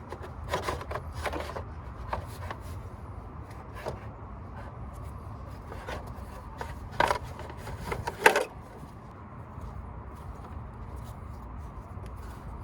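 Plastic cooling-fan shroud rubbing and knocking against the engine bay as it is worked down into place, with scattered clicks and two louder knocks about seven and eight seconds in, over a low steady hum.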